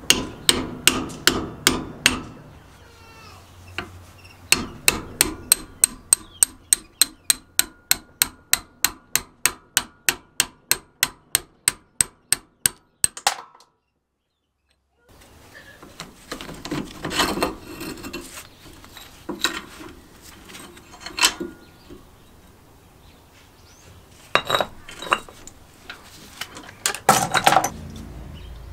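Hammer striking a steel punch to drive a rusted pin out of a chain hoist's arm: a handful of sharp blows, then a long even run of about three blows a second. After a short break, irregular metal clinks and scrapes as the loosened pin is worked out by hand.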